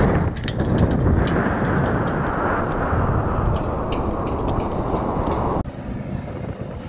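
Wind blowing across the camera's microphone high on an exposed tower: a heavy rushing noise with scattered sharp clicks, cutting off abruptly about five and a half seconds in to a quieter hiss.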